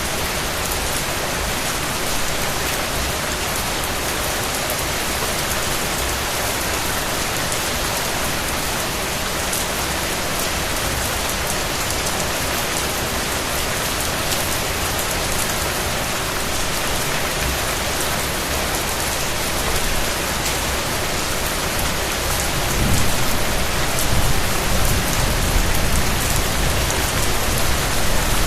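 Steady rain falling, an even hiss of drops. About twenty-three seconds in, a low rumble of thunder comes in and sits louder under the rain.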